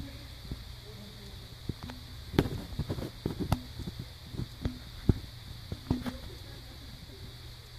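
A scattered run of sharp taps and knocks, a dozen or so over a few seconds in the middle, over a steady low hum.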